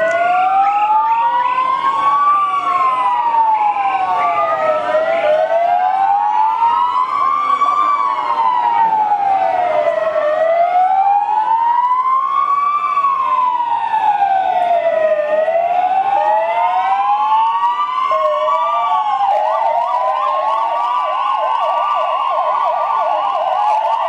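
Several police car sirens wailing at once, their slow rises and falls overlapping out of step. About nineteen seconds in, one switches to a fast yelp.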